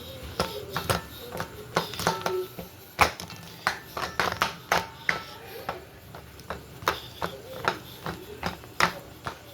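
Irregular sharp clicks and knocks, about two or three a second, from hands and utensils working at a kitchen counter.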